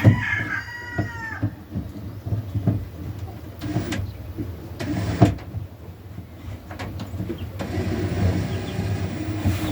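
A hen's short, bending call at the start, then scattered knocks and clunks of the nesting box being fitted in place, one louder knock about halfway through. A steadier whirring hum sets in for the last two seconds.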